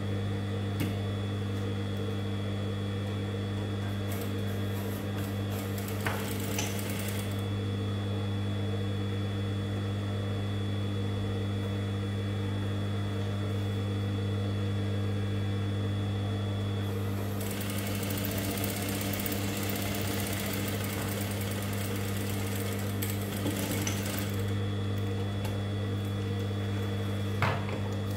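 Gemsy industrial single-needle sewing machine running to top-stitch a fabric edge: a steady motor hum with a high whine throughout. The sound thickens into stitching clatter for stretches, briefly about four seconds in and longest from about seventeen to twenty-four seconds in. A few sharp clicks come near the end.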